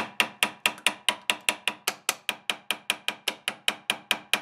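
Rapid, even light hammer taps on the metal leadscrew end housing of a Clausing 8520 milling machine, about five a second, each with a short metallic ring, to loosen the stuck housing.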